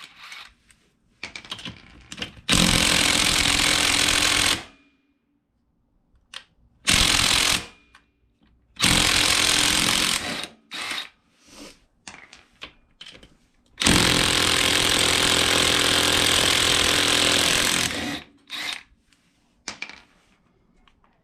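Impact wrench with a 17mm socket hammering the lug nuts off an ATV wheel in four bursts, the last and longest about four seconds, with small clicks of handling the nuts and socket in between.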